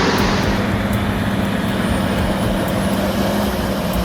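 Heavy-equipment diesel engine running at a steady pitch, a constant drone with a low rumble under it. A loud hiss drops away about half a second in.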